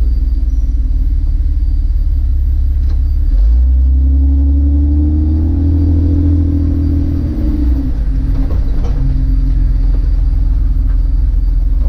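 Jeep Cherokee XJ with the 4.0 inline-six and automatic transmission, heard driving on the road: a steady low engine and road rumble. From about three and a half seconds in it grows louder, with a tone that rises and then falls, and it settles back a little before eight seconds.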